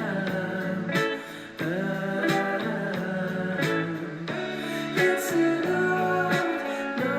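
A song with guitar and a steady beat.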